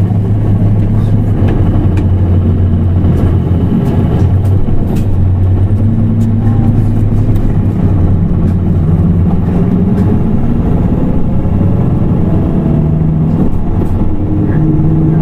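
Nissan Diesel PKG-RA274KAN city bus's diesel engine running under way with a steady low drone. In the second half the pitch of the engine note steps up and down several times as the bus changes speed.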